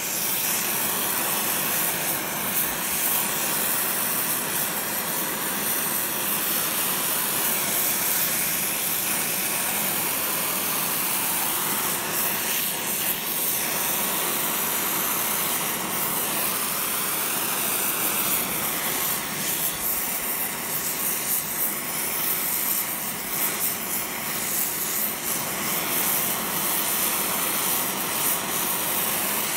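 Oxy-fuel cutting/heating torch flame hissing steadily as it heats a stainless steel rod for bending.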